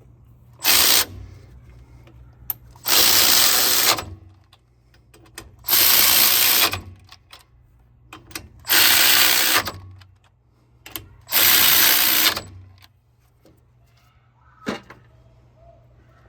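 A power tool running down the differential carrier bearing cap bolts in five short bursts, one bolt after another in a star pattern, snugging them before final torquing. A sharp click follows near the end.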